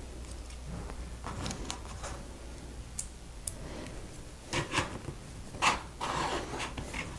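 Plastic LEGO bricks being handled and pressed together: scattered small clicks, a few louder ones past the middle, and a short rustle of pieces near the end.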